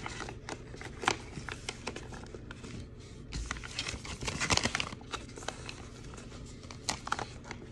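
Sheet-mask packets crinkling and rustling as they are handled and slid into a mini fridge's shelf, with irregular small clicks and taps.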